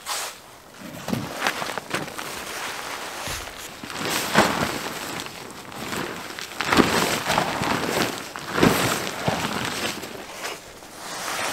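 Heavy-duty tarp fabric rustling and crumpling in several irregular swells as a tarp shelter is pulled down, the loudest about midway and again near three-quarters through.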